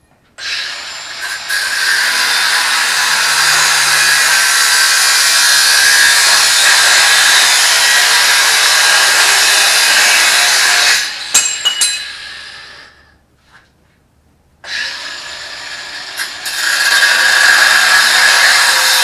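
Ryobi 18V ONE+ cordless angle grinder running, then winding down about 11 seconds in with a few clicks, stopping briefly, and starting up again about 15 seconds in.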